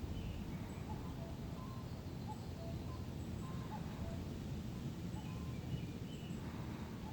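Steady low wind noise, with scattered short, faint bird calls.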